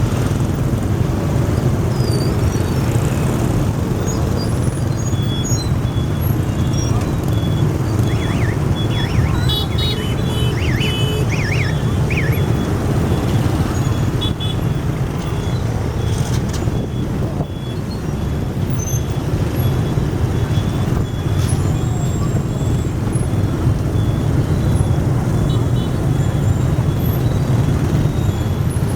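Level-crossing warning bell ringing as an unbroken run of short high pulses, over the steady low rumble of road traffic.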